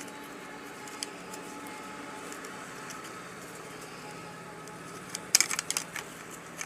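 A quick cluster of sharp plastic clicks and knocks about five seconds in, from a mini speaker's plastic casing being handled and snapped together, over a steady faint background hum.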